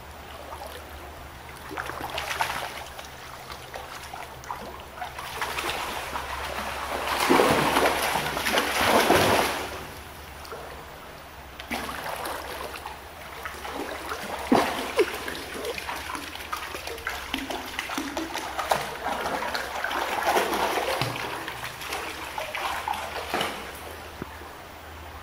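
Dogs wading and splashing through shallow water, sloshing in uneven spells, loudest about seven to nine and a half seconds in.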